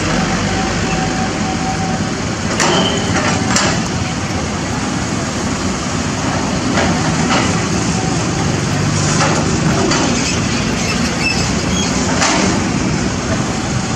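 CAT 320D hydraulic excavator's diesel engine running under load as its bucket digs through broken concrete, brick and soil, with several sharp knocks and cracks of rubble against the steel bucket.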